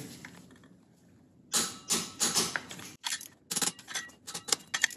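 Ratcheting torque wrench clicking in short bursts as the rear sprocket nuts are tightened to spec, starting about a second and a half in.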